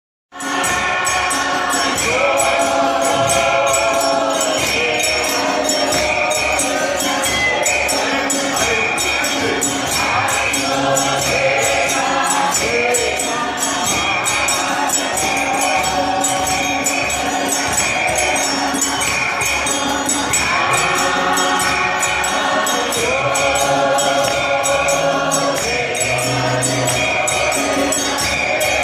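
Men's church choir singing in harmony, held chords changing every second or two, over a steady percussive beat.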